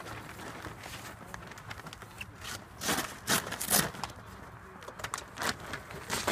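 Hang glider sail cloth rustling and crinkling as it is handled and folded, in a few short bursts, the loudest about three to four seconds in.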